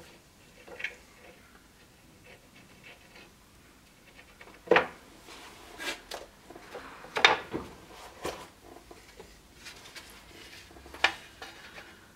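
Thin wooden scabbard boards and small hand tools being handled on a cluttered workbench: a handful of separate knocks and clatters with light rubbing between them, the loudest about five seconds in and again about seven seconds in.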